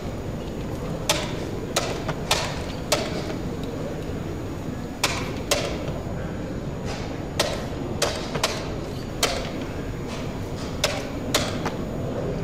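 About a dozen short, sharp clicks and taps at irregular intervals, over a steady low background hum.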